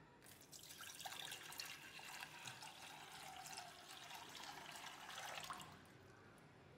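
Faint sound of liquid being poured, starting about half a second in and stopping just before six seconds.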